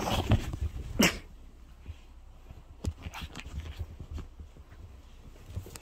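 A small long-haired dog giving two short, sharp vocal outbursts in the first second or so, then quieter scattered clicks and rustles as a hand handles it.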